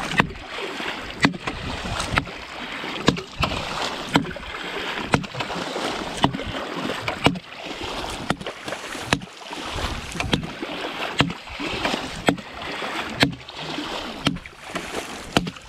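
Footsteps wading through shallow water, each stride splashing about once a second, with water swishing between the steps.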